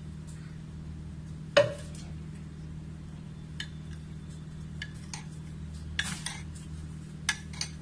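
Metal spoon stirring a thick flour-and-water slurry in a glass bowl, clinking against the glass now and then, the loudest clink about a second and a half in.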